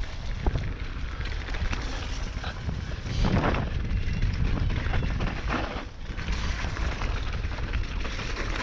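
Wind rushing over the microphone of a mountain bike ride-along camera, with tyre rumble and the clicking rattle of the bike on a dirt trail. The rush swells louder briefly a few times.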